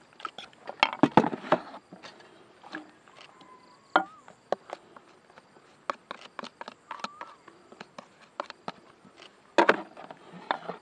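Knife clicking and scraping against a bowl as shredded green papaya is pushed and mixed. The clicks and knocks come irregularly, bunched about a second in and again near the end.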